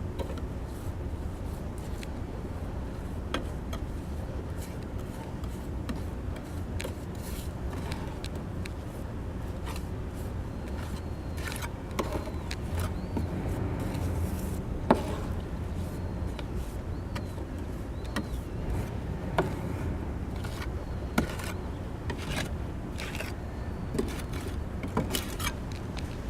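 Hand work on a tiled roof: scattered scrapes, clicks and knocks over a steady low rumble.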